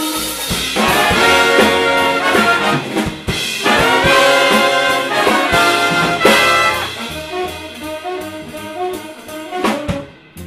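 Big band jazz: the trumpet and trombone sections play loud ensemble passages with the saxophones and drums, then ease back to quieter figures about seven seconds in, with one sharp accented hit near the end.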